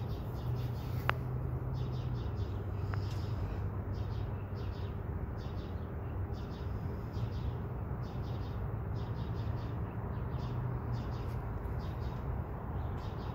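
Outdoor ambience: birds chirping over a steady low hum, with a sharp click about a second in.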